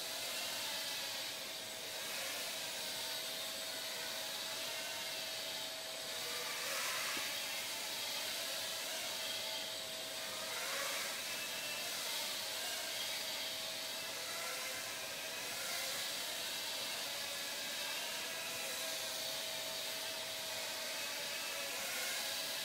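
Blade Nano QX micro quadcopter in flight: the high whine of its four small brushed motors and propellers, with the pitch wavering up and down as the throttle changes.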